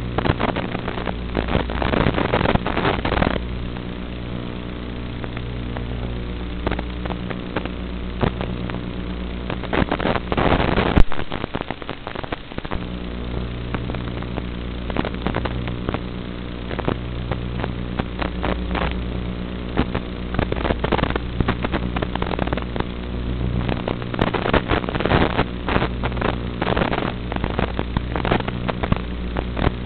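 Steady droning buzz with dense crackling static running through it, as recorded from an FPV drone's analog video link. The drone drops out for a moment about eleven seconds in, and the crackle thickens near the start and again in the last few seconds.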